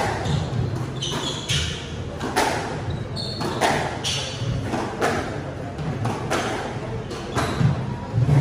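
Squash rally: the rubber ball cracking off rackets and walls about once a second, each hit ringing in the court. Brief high squeaks of shoes on the wooden floor come between the hits.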